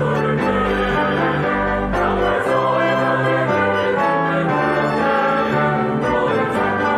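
Mixed church choir singing a Korean hymn with orchestral accompaniment, brass prominent over strings and a moving bass line.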